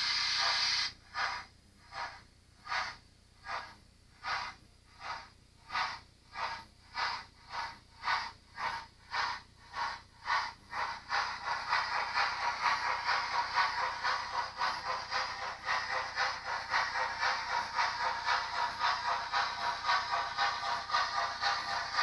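DCC sound decoder in an OO-gauge Princess Pacific model locomotive playing a steam engine starting away: a hiss of steam cuts off about a second in, then slow single exhaust chuffs speed up steadily until, about halfway through, they run together into a fast, even beat with a light rattle.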